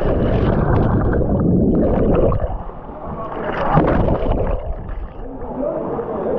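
Muffled churning and gurgling of water around a camera plunged into a pool, dull and deep with the high end cut away. It eases off about two and a half seconds in, then surges again.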